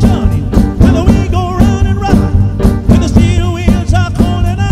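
Live band playing an upbeat funk-rock song: drum kit and bass keeping a steady beat under electric guitars, with a lead line of bending, wavering notes on top.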